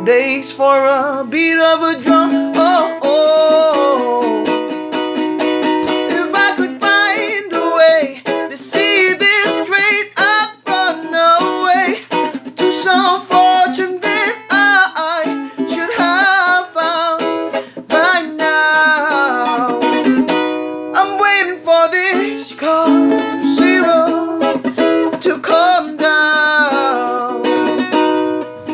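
Ukulele playing a song, with wordless singing over it.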